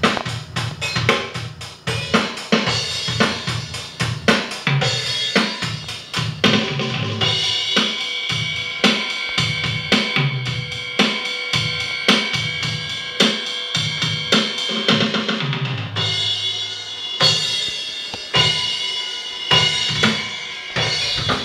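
A drum kit being played in a steady groove: kick drum, snare and cymbals, with ringing tones in the middle stretch.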